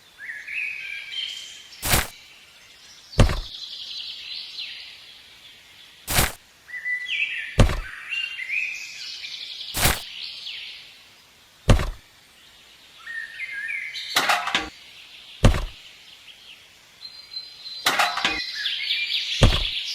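Small birds chirping and twittering, broken by sharp loud knocks every second or two.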